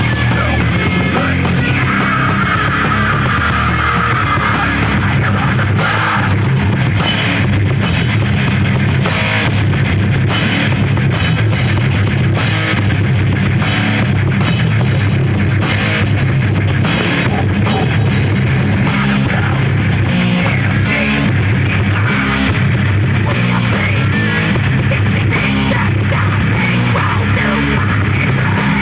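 Live heavy metal band playing loud and continuously: distorted electric guitars, bass and drum kit with crashing cymbals, recorded in the crowd with the sound clipped and harsh.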